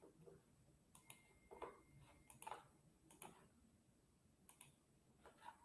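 Quiet computer mouse clicking: short, sharp clicks, mostly in close pairs, coming about once a second.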